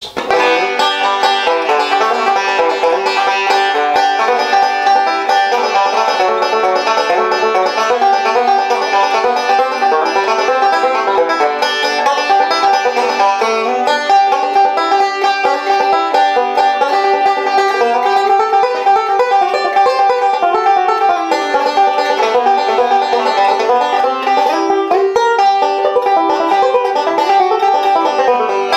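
Solo five-string resonator banjo picked in fast, continuous bluegrass rolls: a dense run of bright plucked notes that starts suddenly and keeps going without pause.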